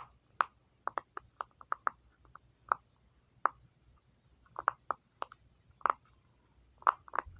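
Silicone pop-it fidget toy being pressed bubble by bubble on its 'bad side': about twenty short pops at an uneven pace, some in quick pairs.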